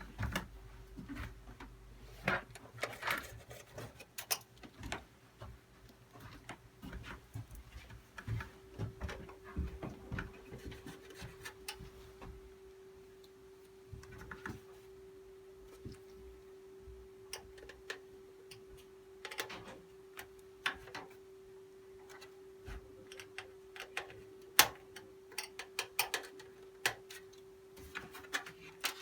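Scattered light clicks, taps and knocks of computer parts being handled, irregular and of varying loudness, over a steady hum.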